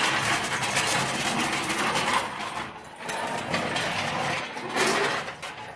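Floor jack being wheeled across the ground, its metal wheels and body rattling and scraping, with a short lull about halfway.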